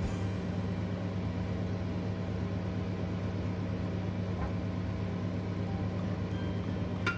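Steady low hum over a pot of chicken soup boiling on the stove, with a single sharp clink just at the end as a ladle touches the pot.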